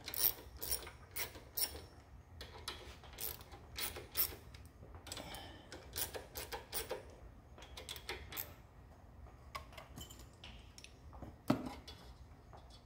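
Ratchet wrench clicking in irregular runs as it cranks down the bolt of a homemade valve-depressing tool, pushing the engine's valves down, with one louder sharp metal click near the end.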